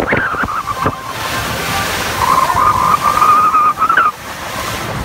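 Rushing water and wind as a motorboat moves through the sea, with a wavering high held tone for about two seconds in the middle.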